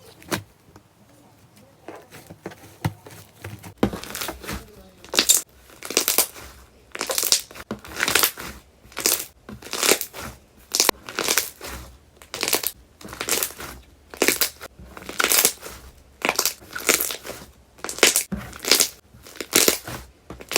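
Slime being squeezed and pressed, a squish repeated about once a second, starting about four seconds in after a few faint clicks.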